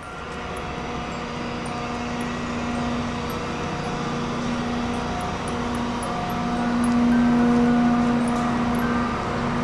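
A car ferry's engines running steadily, heard on its open car deck as a low hum with one strong droning tone, which grows louder about seven seconds in.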